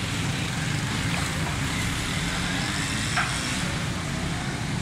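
Steady street traffic noise with a low rumble, and a single faint knock about three seconds in.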